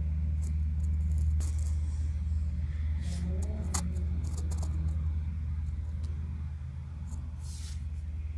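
A steady low machine hum, with a few scattered clicks and brief rustles over it.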